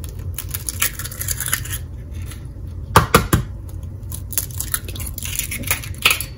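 Eggs being cracked one after another into a ceramic mixing bowl: a cluster of sharp cracking knocks about three seconds in and more near the end, with lighter clicks of shell and bowl handling between.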